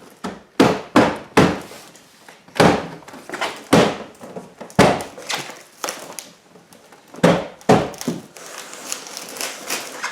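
A series of sharp thunks and knocks from work on a pickup truck door, about eight irregularly spaced, followed by lighter clattering near the end.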